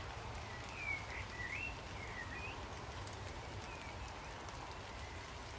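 Steady rain falling, with a songbird singing a short phrase of whistled, sliding notes from about half a second in until nearly three seconds in.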